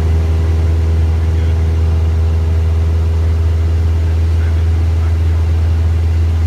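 Single-engine light airplane's piston engine and propeller droning steadily, heard inside the cockpit.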